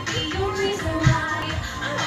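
Music with a singing voice carrying a held, gliding melody.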